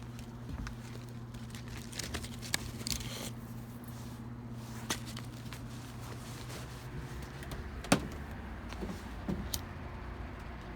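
A steady low hum that stops about three-quarters of the way through, with scattered light clicks and knocks and one sharp click just after the hum stops.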